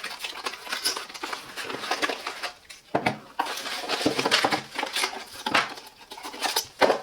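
Doorbell packaging and its parts being handled: irregular light clicks, taps and rustling of plastic and cardboard as things come out of the box.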